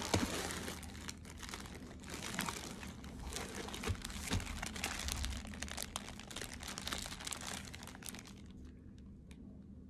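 Clear plastic bags of folded fabric crinkling as they are handled and lifted out of a cardboard box: a dense run of small crackles and rustles that dies down about eight seconds in.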